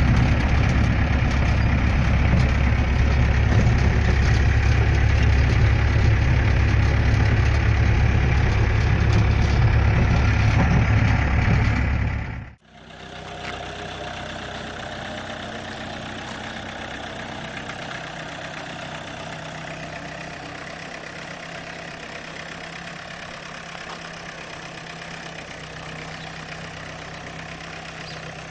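Rastrojero light truck's diesel engine running loudly while driving, heard from inside the cab with a deep low rumble. About halfway it cuts off suddenly, and a quieter, steady engine sound follows.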